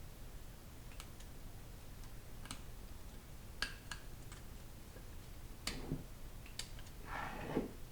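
Faint, scattered light metallic clicks and taps, about nine spread irregularly, from small transmission parts and a tool being worked by hand to free a stuck piece, with a short rustle near the end over a low steady hum.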